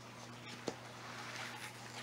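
Houseplant leaves and stems rustling as they are handled, with one sharp click about two-thirds of a second in.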